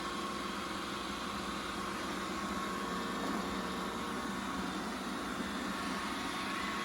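Roomba 960 robot vacuum running steadily, its motors and brushes humming with no squeak: the squeak came from a hardened dust-and-hair clump stuck between the brush assembly and its spindle, now cleared.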